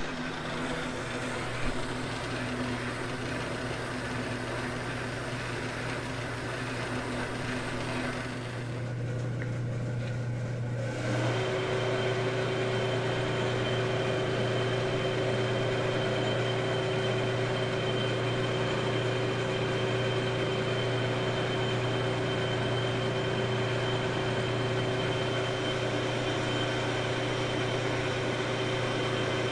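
Metalworking shop machine running steadily, a motor hum with a steady whine. The sound shifts about nine seconds in, then settles into a slightly louder, even whine from about eleven seconds.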